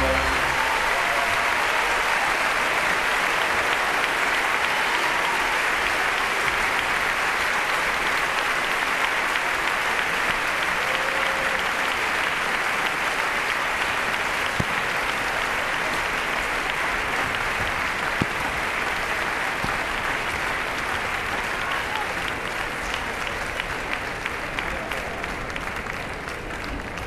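Large theatre audience applauding in a steady, dense ovation that slowly dies down near the end.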